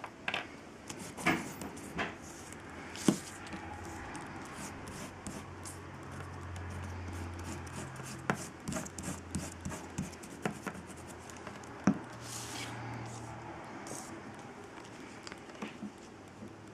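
Handling noise from gluing paper: a glue stick is uncapped and rubbed across cardstock, with soft rubbing and scattered sharp clicks and taps. Near the end, a cardstock strip is pressed down onto the card.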